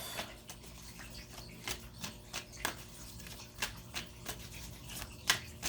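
Tarot cards being handled and drawn by hand: a scatter of light clicks and taps.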